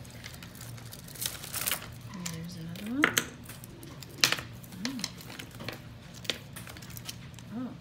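Stone beads on a necklace clicking and clinking against each other as it is handled, a scatter of short sharp ticks.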